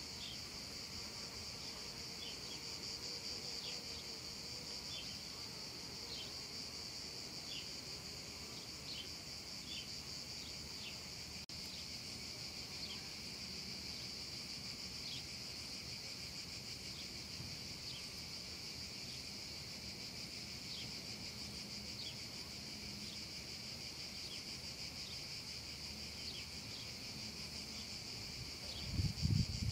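A chorus of cicadas singing in one steady, unbroken high buzz, with short falling chirps repeating about once a second over it. A loud low rumble comes in near the end.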